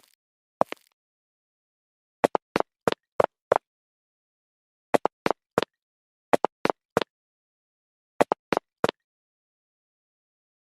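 A series of short, sharp knocks in quick groups of three to five, each group about a second long, with total silence between the groups.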